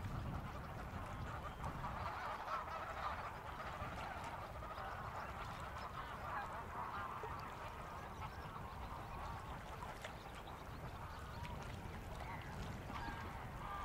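A flock of geese calling continuously, many overlapping honks, over a low rumble.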